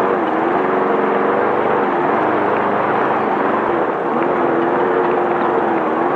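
Class 5/1600 Volkswagen Beetle race car's air-cooled 1600 cc flat-four running hard, its pitch dipping and rising a few times with the throttle, over a heavy wash of dirt, wind and chassis noise.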